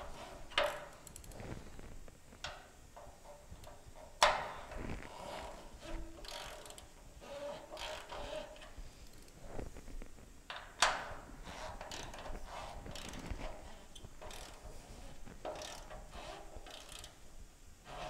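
Socket wrench ratcheting in short, irregular strokes, with light clinks of tools and hardware against the steel chassis frame as bolts are run in; a couple of sharper clicks stand out.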